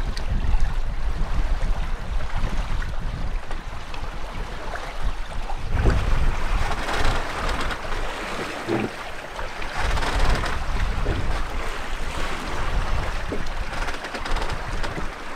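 Wind buffeting the microphone over water rushing and splashing against a catamaran's hulls as it sails; the water sound gets louder and brighter about six seconds in.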